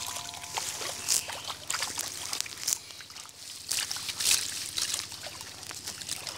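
Water splashing and trickling as a fishing net is hauled out of the shallows of a pond, with several sharper splashes among the dripping.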